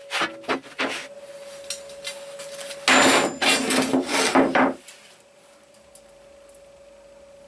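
Steel angle bars and a plywood tabletop being handled: a few sharp knocks in the first second, then about two seconds of loud scraping and clattering of metal on plywood. A faint steady hum runs underneath.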